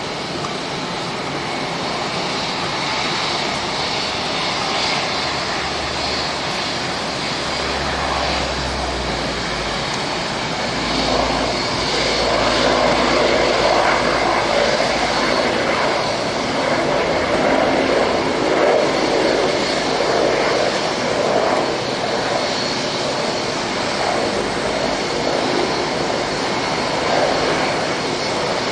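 Dash 8 turboprop airliner's engines and propellers running close by, a steady noise that grows louder about eleven seconds in.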